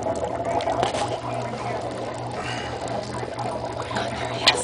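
Small aquarium running: a steady low hum with water trickling and bubbling, and one sharp click near the end.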